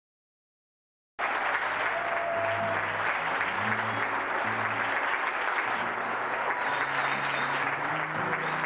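Audience applauding steadily, with music and a stepping bass line playing underneath. After about a second of dead silence the applause and music cut in suddenly.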